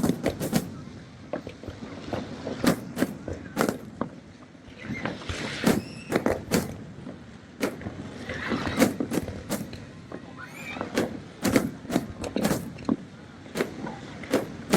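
Irregular sharp cracks and pops, two or three a second, over a steady background noise.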